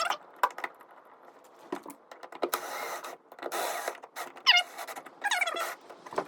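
Hands working a bent part of a weatherproof outlet box out and back into place: scattered clicks, two rough scraping rubs about halfway through, and short squeaks and creaks near the end.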